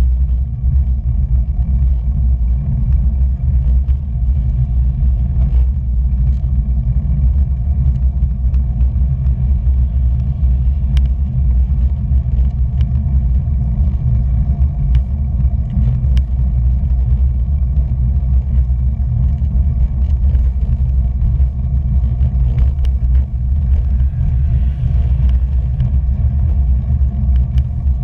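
Wind rushing over a bike-mounted action camera's microphone while riding, a steady low rumble, with scattered light ticks from the road surface.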